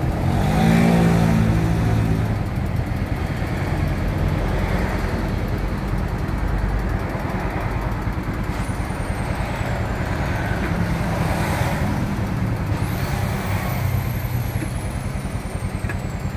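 Yamaha Soul GT 125 scooter's single-cylinder engine idling steadily, with its freshly fitted exhaust; the pitch rises briefly about a second in.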